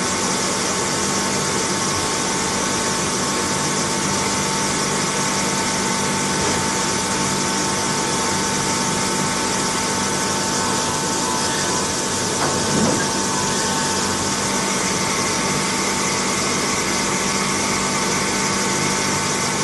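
CNC lathe running while it machines a metal screw-compressor rotor: a steady mechanical drone with a high hiss and a few held tones, and one brief louder swell about two-thirds of the way in.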